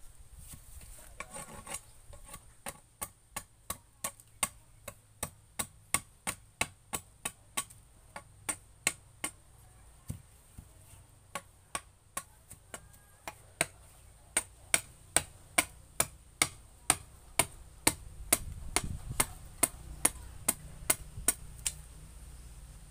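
Sharp, evenly spaced tapping on a wooden paddle blank, about two to three strikes a second, kept up steadily with a brief pause partway through.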